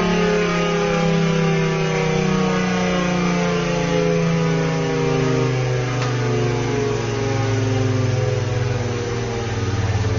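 Tornado siren winding down on its chopper level 2 setting, one continuous tone falling slowly and steadily in pitch.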